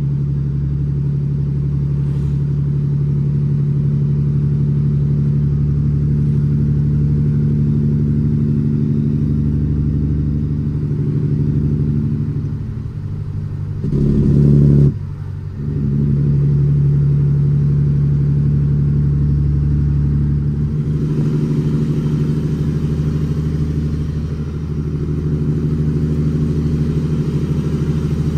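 Cummins ISX 525 hp diesel of a dump truck fully loaded with gravel, running steadily under load as heard from inside the cab. About halfway through it dips, comes up louder for about a second, then drops off sharply before settling back into its steady run.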